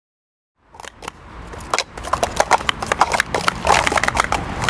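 Plastic sport-stacking cups clacking rapidly and irregularly as several people stack and unstack them on their mats, starting just under a second in.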